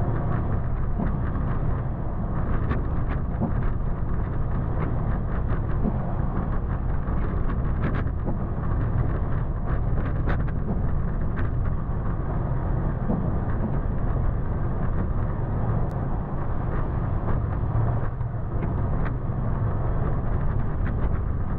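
Toyota FJ Cruiser driving slowly along a rough dirt trail: a steady low rumble of engine and tyres, with scattered short knocks and clicks all through.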